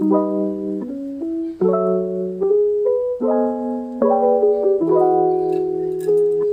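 Background piano music, a melody over chords that change about every second.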